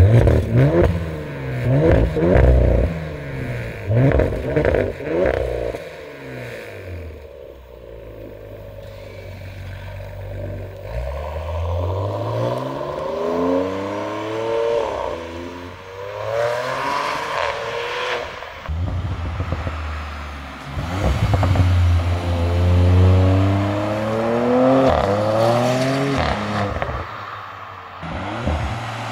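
Audi RS5 B9's twin-turbo 2.9-litre V6, tuned to 540 PS and running through an aftermarket exhaust with downpipes and 200-cell metal catalysts, accelerating hard on the road. The engine note climbs in pitch and drops back at each gear change, several times over. It fades briefly about seven to ten seconds in, then builds again through further upshifts.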